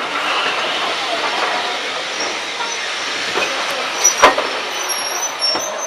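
Steam locomotive hissing steadily as it stands near the platform, with one sharp knock about four seconds in and a fainter one near the end.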